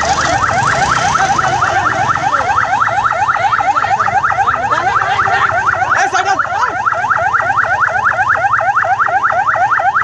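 Ambulance siren on a fast yelp: a rapid, unbroken string of rising sweeps, about six or seven a second.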